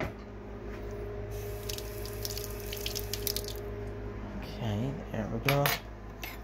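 Tap water running into a sink while a metal fork is rinsed under it. The water stops about four seconds in, and a short burst of voice follows.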